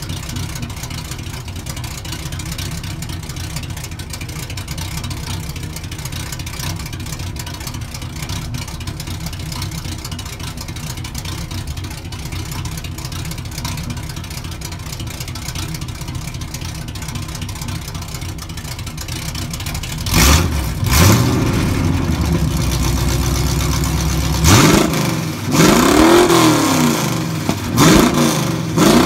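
1970 Chevelle's 350 small-block V8 running through long-tube headers into an H-pipe with no mufflers yet, idling steadily. Over the last several seconds it is revved in a few throttle blips, the engine note rising and falling with each.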